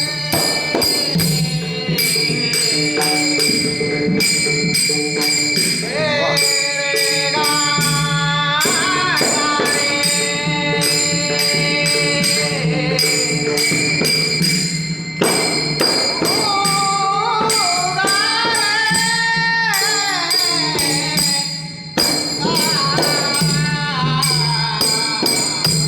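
A man singing a Marathi devotional bhajan in long, bending phrases, over a steady held drone and jingling percussion keeping a regular beat.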